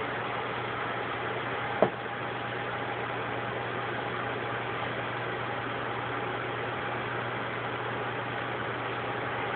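Steady low hum with a constant hiss over it, and one sharp click about two seconds in.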